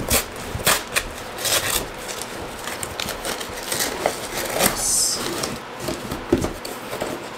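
A cardboard shipping box being torn open by hand along its pull-tab tear strip, then its flaps pulled apart: irregular ripping, rubbing and scraping of cardboard and packing.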